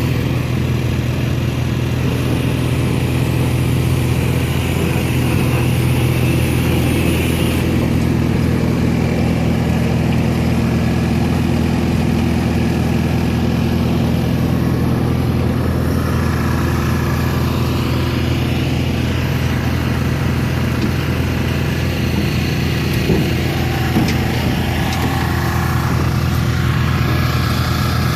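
An engine running steadily at constant speed, with two light knocks about two-thirds of the way through.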